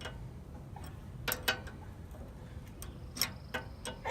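A few light metallic clicks of a wrench against a nut and the steel of a bandsaw mill's guide roller assembly, two about a second in and two more after three seconds.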